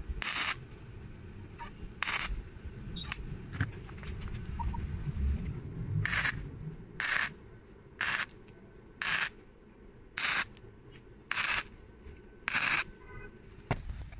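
Arc welder making a series of short welds on small steel chain links: brief bursts of arc noise, two near the start, then about eight in a row, roughly one a second, from about six seconds in.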